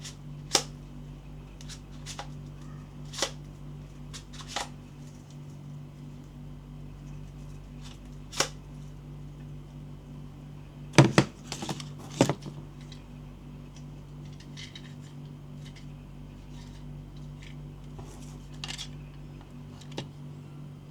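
Unboxing handling noises from a toy blaster and its packaging: scattered sharp clicks and knocks, with a quick run of louder ones about eleven seconds in, over a steady low hum.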